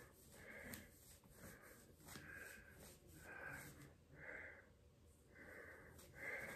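Faint, wheezy breathing of a person close to the microphone, a soft breath about every second.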